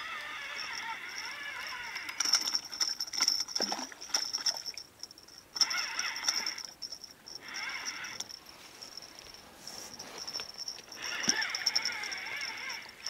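A fishing reel is wound in short spells with a wavering whine, pausing in between, while a small hooked fish splashes at the surface, with a few sharp splashes or knocks along the way.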